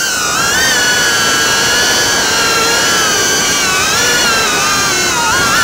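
Tokio-X race drone's brushless motors and propellers whining at high revs, heard from the drone's onboard camera. The pitch wavers with the throttle and dips, then climbs again near the end.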